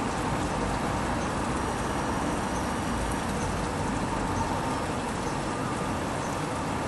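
Steady hum of distant road traffic, an even wash of noise with no distinct events.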